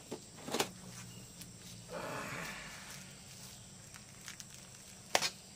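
Plastic parcel wrapping rustling as it is handled and cut open with a knife, loudest about two seconds in, with a sharp click about half a second in and another near the end.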